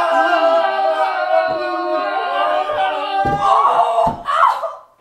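A long vocal cry held on one wavering sung note for about three seconds. It is followed by a short rush of noise with a few low thumps that fades out near the end.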